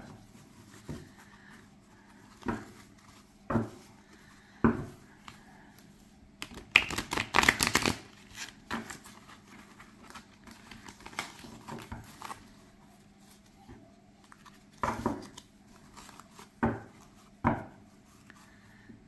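A deck of oracle cards being shuffled by hand: a quick rattling flutter of card edges riffling together about seven seconds in, with single sharp snaps and taps of the cards being split and squared before and after it.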